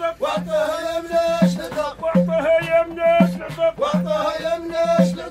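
Abidat Rma folk music: several men singing a chant together over a frame drum (bendir) and small clay hand drums beating a steady rhythm of about two to three strokes a second.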